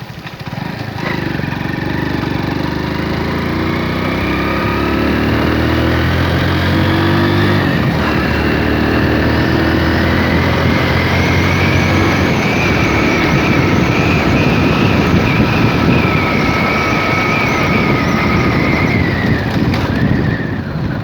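Motorcycle engine running under load while riding, its note climbing for the first several seconds as it picks up speed, over steady wind and road noise; the sound eases off near the end.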